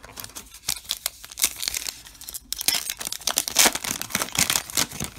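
A 2021 Topps Heritage baseball card pack's crimped wrapper crinkling and tearing as it is ripped open by hand. The crackling is loudest in the second half.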